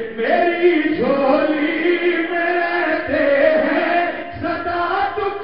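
A man chanting devotional verse into a microphone in long, drawn-out melodic phrases, his voice held on sustained notes that bend up and down.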